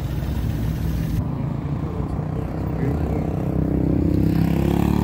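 A vehicle engine running at low speed, growing louder over the last second or so.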